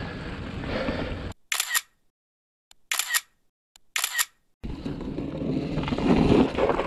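Three camera-shutter click sound effects about a second apart over dead silence, with the rumble and rush of riding noise cutting out before them and coming back after.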